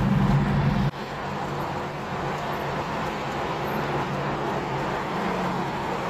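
Toyota Cressida's 2JZ inline-six engine running loudly, its note cutting off abruptly about a second in and leaving a steadier, quieter rush with the engine faint beneath it.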